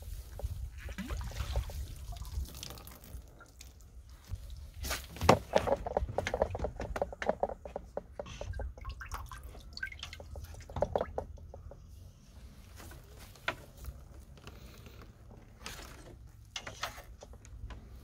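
Water dripping and trickling from the wet cartridge filter of a Kärcher wet-and-dry vacuum into its tank of drawn-up well water as the vacuum head is lifted off. Scattered knocks and clicks come from handling the plastic head and tank.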